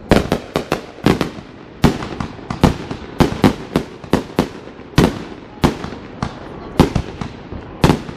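Fireworks going off in quick succession: a rapid, irregular string of sharp bangs, about two to three a second, each with a short echoing tail.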